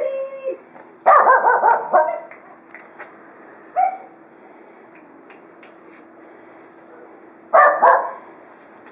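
A dog barking in short bursts: a quick run of barks about a second in, a single bark near four seconds, and a couple more barks near the end.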